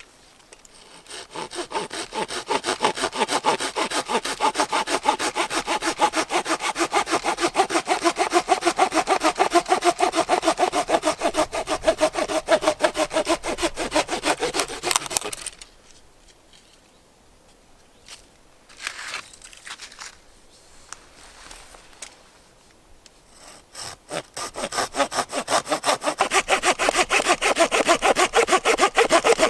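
Hand saw cutting through wood in quick, steady back-and-forth strokes. It stops for several seconds partway through, with a few knocks, then starts sawing again.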